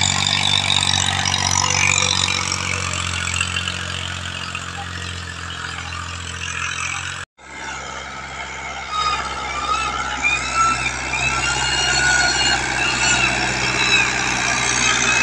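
Tractor diesel engines running steadily under load, pulling rotavators through tilled soil. The sound drops out for a moment about seven seconds in, then a closer tractor and its rotavator are heard, with a deeper, fuller engine note.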